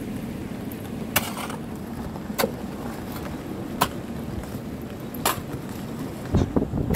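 Steady low hum of kaolin processing machinery, with a sharp clink about every second and a half as a hoe strikes the steel-bar grate and rock while scraping lumps of kaolin through it. A few duller thumps come near the end as clay lumps drop through.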